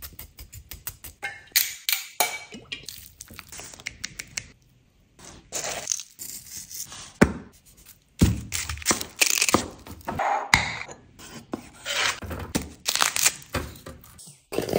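Close-up food-prep handling sounds of a raw joint of meat on a wooden chopping board: a knife stabbing slits into it, hands working in seasoning and rosemary sprigs, and the joint set into a metal roasting tray. They come as a run of irregular short knocks, taps and scrapes.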